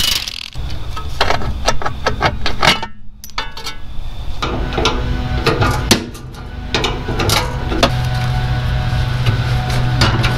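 Irregular metal knocks and rattles from a cordless impact driver working on rusted tractor sheet metal. About four seconds in, a steady low hum comes in under further knocks.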